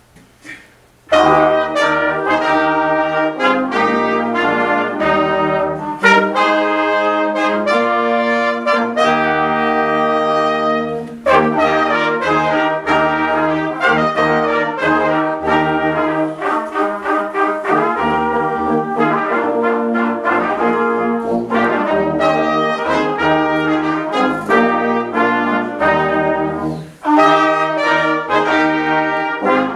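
A small brass ensemble of trumpets and trombones playing a piece together. They enter about a second in and break off briefly twice.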